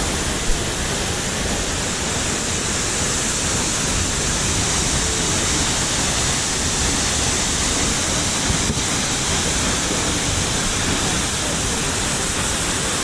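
Steady, unbroken rush of a large, heavy-flowing waterfall, its water pounding down a drop of roughly 25 m.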